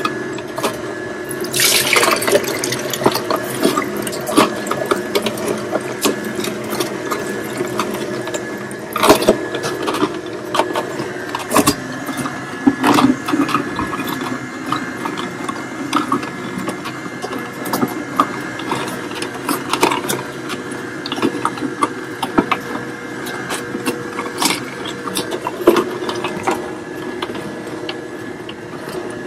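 Slow juicer running on carrot, green apple and cucumber: a steady motor hum with frequent sharp cracks as the pieces are crushed, and juice running out. There is a bigger burst of crunching about two seconds in.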